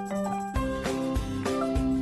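Upbeat background music with a melody of short, bright notes. A steady bass-drum beat comes in about half a second in.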